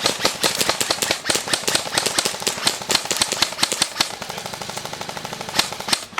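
Airsoft guns firing rapid, overlapping bursts of sharp clacks. From about four seconds in, a quieter, steady stream of full-auto fire runs on, with a few louder single shots near the end.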